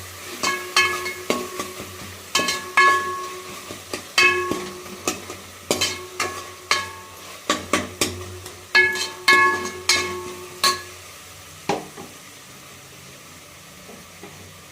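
Metal spoon or spatula repeatedly striking and scraping a metal pan while stirring frying food, each knock ringing briefly. The strokes stop about eleven seconds in, leaving a faint steady sizzle.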